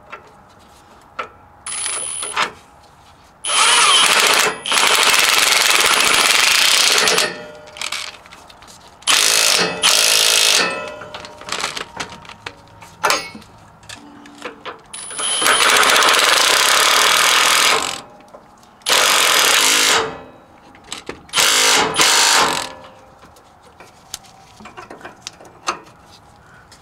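Cordless impact wrench hammering on a bolt in repeated bursts, some under a second and some about three seconds long, with short clicks of handling between them.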